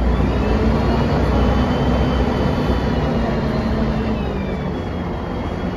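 Cabin sound of a 1999 Mercedes-Benz O405NH city bus under way: a steady low engine hum with a high whine that climbs in pitch about a second in and sinks again about four seconds in, following the bus's speed.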